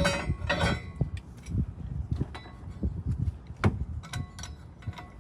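Scattered metallic clicks and knocks of a socket and hand tools working on a truck's brake hardware bolts, at irregular intervals, with one sharper clack near the middle.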